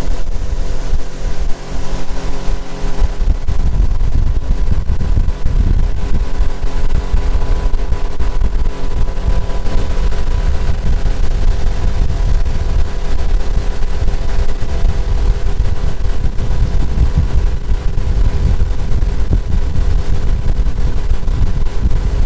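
Pontoon boat's outboard motor running steadily while underway. Heavy wind rumble on the microphone takes over from about three seconds in.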